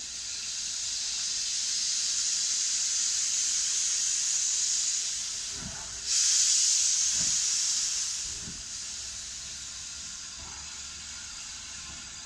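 S160 2-8-0 steam locomotive hissing steam. About six seconds in the hiss suddenly gets louder for a couple of seconds, with three slow, low chuffs about a second and a half apart, then it eases back to a steadier hiss.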